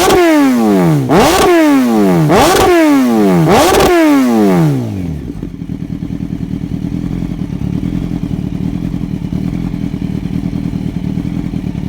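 Kawasaki ZX-12R inline-four through a Trickstar titanium header and Maverick MV1 silencer, blipped four times about a second apart, the revs shooting up and falling back each time, then settling into a steady idle about five seconds in.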